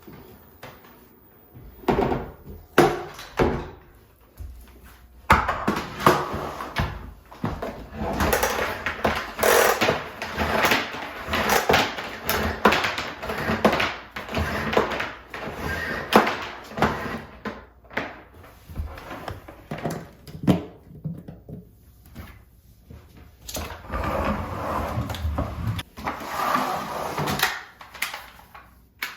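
Household handling noise: irregular knocks, bumps and rustling as objects are moved about a room, with no vacuum motor running.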